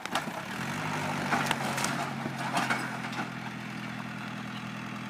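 Farm tractor engine running steadily, with a few sharp knocks over the first three seconds.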